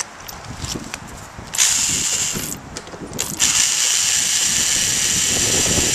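Electric drill driving screws through plastic mesh into the top of a plastic rain barrel. There is a short run of the motor about a second and a half in, then a longer steady run from about three and a half seconds.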